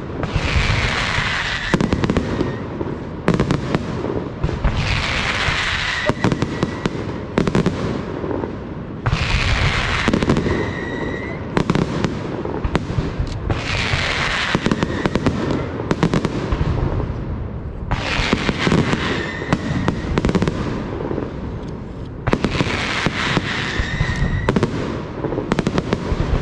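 Fireworks display: dense bangs and crackling go on throughout, and about every four and a half seconds, six times in all, a hissing whistle glides down in pitch and holds briefly.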